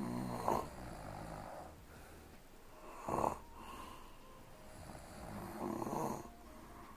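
A young woman snoring in her sleep: three snoring breaths about three seconds apart, the middle one short and sharp.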